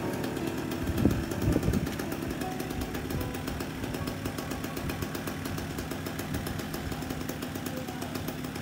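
Small motorcycle engine idling steadily with a fast, even beat, with two brief louder knocks about a second in.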